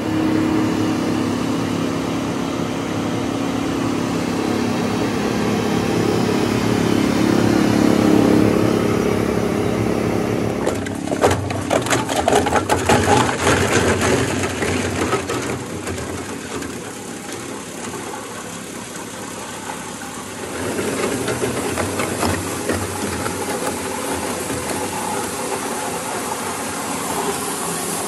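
GENOX GCV600 combo shredder-granulator running with a steady motor hum; about eleven seconds in, plastic lumps hit the toothed rotor and are crunched with a rapid clatter of sharp cracks for a few seconds. Later a steady hiss sets in as the ground granules pour from the rotary valve of the collection hopper.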